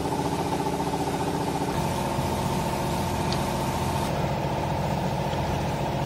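A hydraulic baler's power unit, its electric motor and oil pump, running steadily with a hum and a whine.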